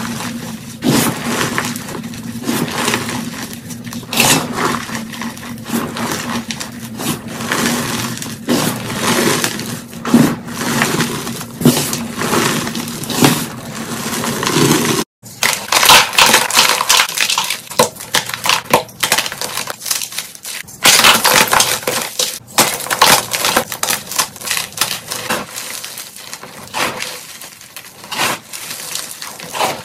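Hands squeezing and crumbling blocks of chalk into powder: dense, irregular crunching and crackling. There is a brief silent break about halfway, after which the crunches are crisper.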